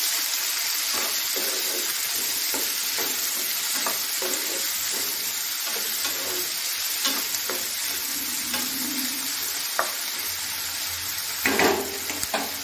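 Chopped tomatoes and onions sizzling in oil in a nonstick frying pan while a spatula stirs them, with repeated scraping strokes against the pan and a louder stroke near the end.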